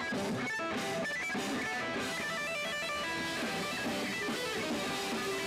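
Live band music led by electric guitar, picking quick runs of notes over a fuller band sound.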